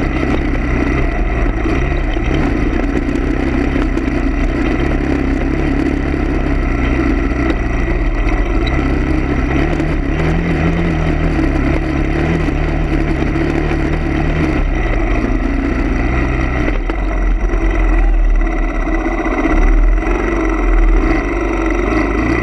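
A motor vehicle's engine running steadily, its pitch stepping up and down a few times, with a few louder low rumbles near the end.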